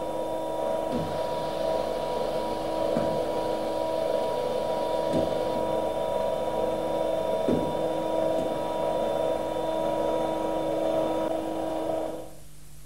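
Hydraulic power unit running: its electric motor and pump give a steady hum with a few held tones, stopping about twelve seconds in.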